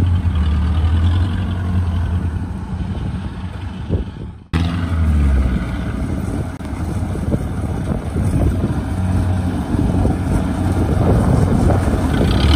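Diesel engines of a rice combine harvester and a tracked rice carrier running steadily with a low hum. About four and a half seconds in the sound cuts out for an instant and resumes.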